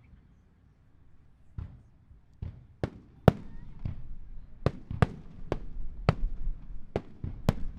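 Aerial fireworks shells bursting with sharp bangs, a few spaced out at first, then coming in quick succession from about three seconds in, roughly two a second, each with a short echoing tail.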